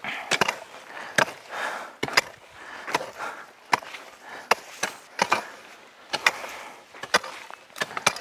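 Hand hoes chopping into the soil of potato rows, about ten strikes at a little under one a second, each blow followed by a short scrape of earth.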